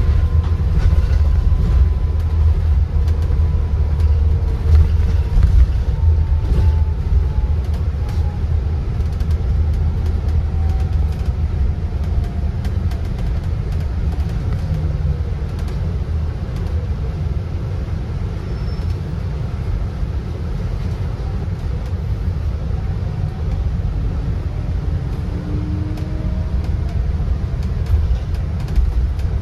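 A sightseeing bus in motion, heard from on board: a steady low rumble of ride and road noise, with faint whining tones that drift slowly in pitch.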